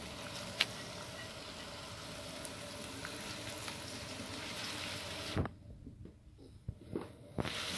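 Sliced onions sizzling in hot oil in an iron karahi while being stirred with a metal slotted spatula. The steady sizzle drops away after a sharp knock about two thirds of the way through, with a few more knocks, and comes back near the end.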